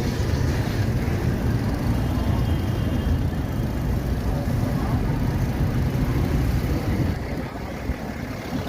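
Steady city street traffic noise heard from a moving e-bike, with a heavy low rumble, easing slightly near the end.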